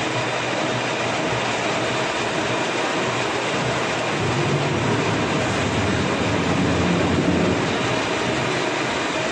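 Rotary veneer peeling line running: the veneer lathe, its motors and the roller conveyors make a steady, loud mechanical noise with a low hum underneath.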